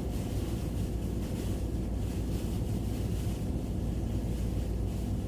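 Blizzard wind blowing on the microphone: a steady low rumble with faint gusty hiss, no single event standing out.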